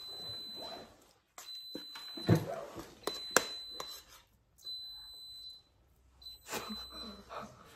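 A metal spoon clinking and scraping against a plastic plate while a child is fed, with two sharp clicks about two and three seconds in the loudest. Soft breathy laughter comes and goes, and a faint high-pitched electronic whine switches on and off several times.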